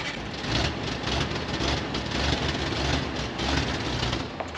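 Jeep J-10's swapped-in Ford 300 cubic-inch inline six running just after starting, a steady engine rumble with an uneven low throb.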